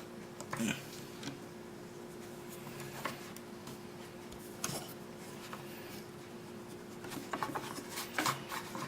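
Plastic toy packaging being handled: a few scattered clicks and rustles, then a busier run of crinkling and clicking near the end, over a steady faint hum.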